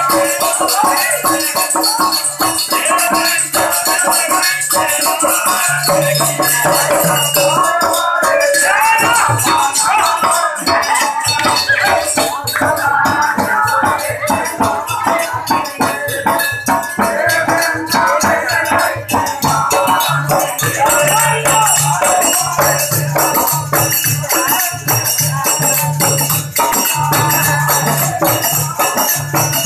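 Loud live Indian folk music: a dholak drum played with rattling, jingling percussion in a continuous beat.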